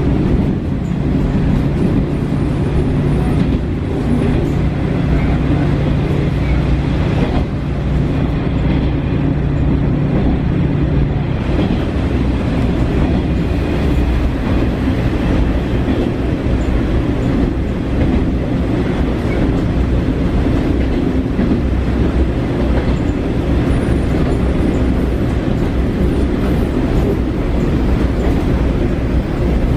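JR Shikoku KiHa 40 diesel railcar running, heard inside the passenger cabin: a steady low engine and rolling noise. A steady low hum in it drops out about eleven seconds in.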